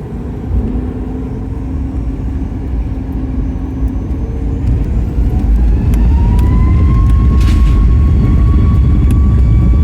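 Boeing 737 MAX 8-200's CFM LEAP-1B turbofan engines spooling up to takeoff thrust. A deep rumble swells, and about halfway through a whine rises in pitch, then holds steady as the thrust settles.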